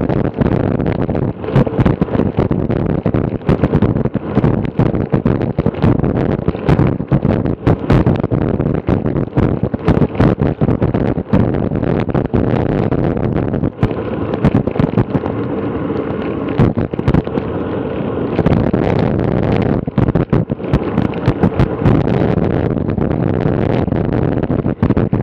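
Wind buffeting the microphone of a bike-mounted action camera riding at about 15–18 mph, with a steady rumble and frequent irregular pops and knocks.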